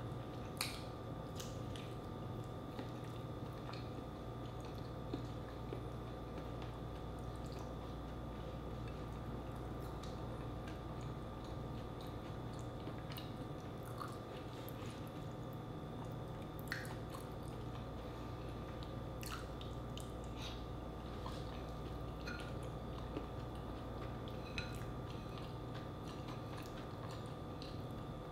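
Close-up eating sounds: wet chewing and squishy mouth noises from soft, sauce-coated seafood boil, with scattered sharp clicks and smacks. A steady low hum runs underneath.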